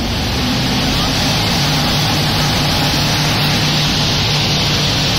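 Thames Clipper passenger catamaran under way: its engines drone steadily, with a constant rush of water and wind.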